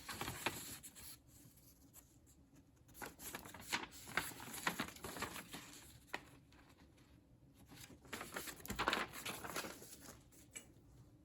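Paper and packaging being handled: intermittent rustling and crinkling with small clicks and knocks, loudest in a few short spells.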